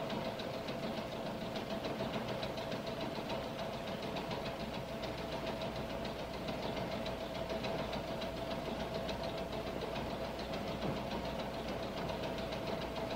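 Subway car noise: a steady rumble and fine rattle with a constant hum, unchanging throughout.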